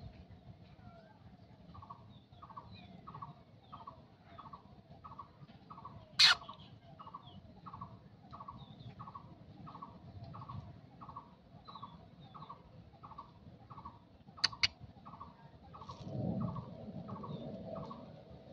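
A bird calling one short note over and over, steadily, about one and a half notes a second. Two sharp clicks cut across it, one about six seconds in and a double one near fifteen seconds, with a low rumble near the end.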